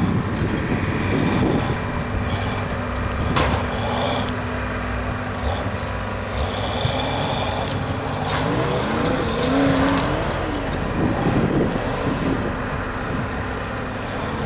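Toyota rock crawler's engine running under load as it crawls over logs and rocks, revving up and down several times in the second half.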